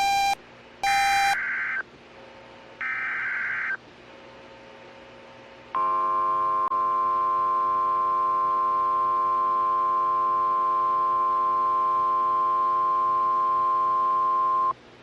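Emergency alert header: three short bursts of screeching data tones in the first two seconds and a quieter one about three seconds in. About six seconds in, a steady, buzzy NOAA Weather Radio warning alarm tone sounds for about nine seconds and cuts off abruptly, signalling that a warning broadcast follows.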